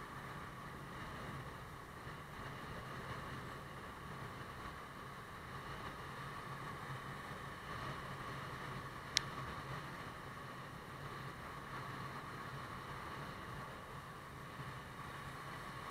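Motorbike running steadily while riding, with road and wind noise. A single sharp click about nine seconds in.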